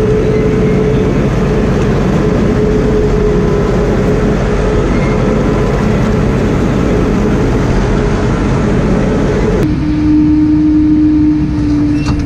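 New Holland T6050 tractor running steadily with a constant whine over the engine noise. About ten seconds in, the sound changes abruptly to a duller, lower-pitched hum.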